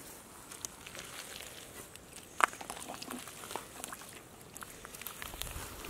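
Hands digging and squelching through wet mud, with scattered small crackles and clicks at an irregular pace. One louder, sharp click comes about two and a half seconds in.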